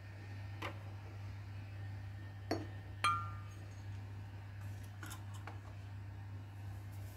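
A few light knocks and clinks of objects being set down on a shelf among glass bottles. One clink about three seconds in has a short glassy ring, and a small cluster of taps comes near the end as a cover is placed on a noodle cup. A low steady hum runs underneath.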